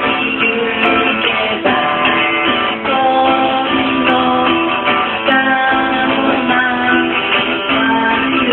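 A live song: a woman singing to her own strummed acoustic guitar.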